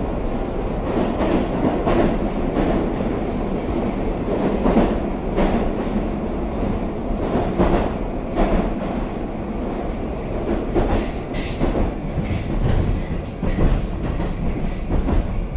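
Running noise inside a Moscow metro 81-760 'Oka' car moving between stations: a steady rumble of the wheels on the rails, with irregular clicking from the wheels.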